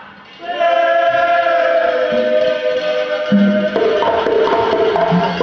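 Voices singing long held notes in a chant, with a few low hand-drum strokes beneath them. The notes change pitch a little past the middle.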